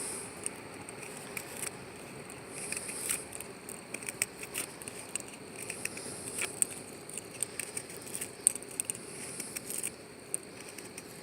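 Victorinox Rangerwood 55 pocketknife blade cutting notches into a wooden stick under force: irregular short scrapes and clicks as the blade bites into the wood.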